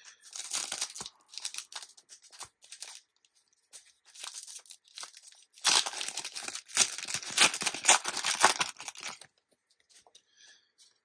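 A trading-card booster pack wrapper being torn open and crinkled, in uneven bursts of ripping and crackling that are loudest from about six to nine seconds in.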